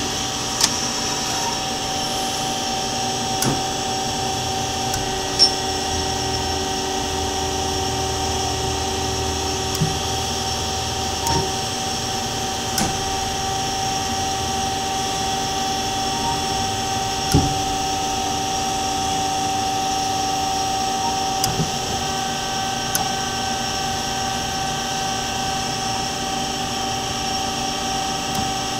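Duet horizontal bandsaw's motors running: a steady machine hum with a fixed whine, and scattered light clicks. A lower hum drops out about eleven seconds in.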